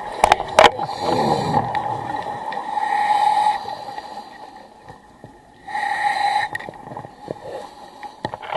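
Scuba diver breathing through a regulator underwater: hissing inhalations about every three seconds, with a bubbling exhale after the first. A few sharp clicks come in the first second.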